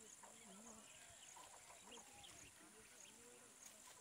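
Very faint open-country ambience: a steady high-pitched insect drone with faint scattered bird chirps.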